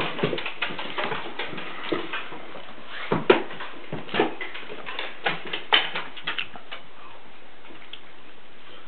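Irregular clicks and knocks, a few a second, stopping about seven seconds in and leaving a steady hiss.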